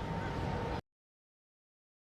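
A steady noisy background with a faint steady tone cuts off abruptly under a second in, followed by dead digital silence: a gap between clips.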